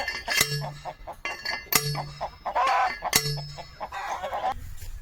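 A steel star picket driver slammed down onto a star picket three times, about a second and a half apart, each strike a sharp metallic clang with a short ring. Chickens cluck between the strikes.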